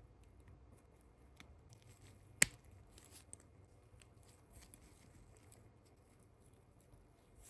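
Small parts and tools being handled during the restoration of a pistol: scattered faint clicks and light scraping, with one sharp click about two and a half seconds in.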